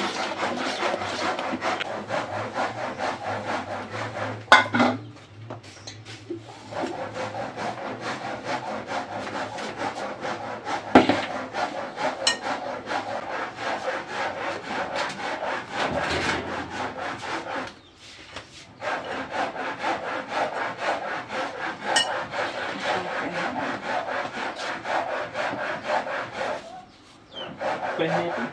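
Fast, steady rubbing and scraping strokes from hands working in the kitchen, breaking off briefly three times. There is a sharp knock about four and a half seconds in and another about eleven seconds in.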